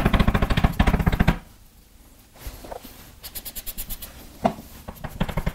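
Handwriting on a board: quick scratches and taps of a pen stroking a writing surface, dense for about the first second and a half, then sparser and fainter.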